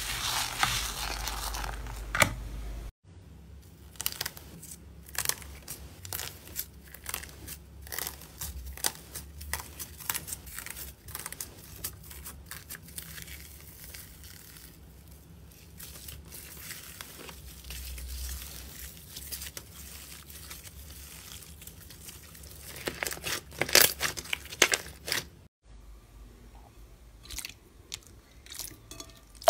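Slime coated in silver foil flakes being pressed and stretched, giving irregular crackling, crinkling crunches, with a louder cluster of crunches a few seconds before the end. It opens with thick green slime being stirred and ends with clear pink slime squished by hand.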